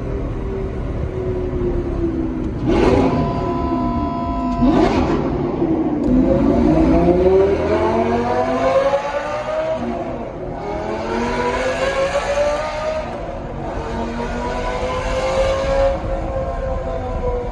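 Lamborghini Gallardo Superleggera V10 with a loud aftermarket F1-style exhaust, accelerating through the gears in a tunnel. The pitch climbs and then drops at upshifts about ten, thirteen and sixteen seconds in, with two short sharp bursts around three and five seconds in.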